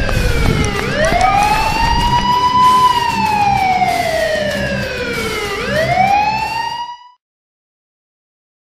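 Siren wailing, its pitch sliding slowly down and then sweeping quickly back up, over a low rumble; the sound cuts off abruptly about seven seconds in.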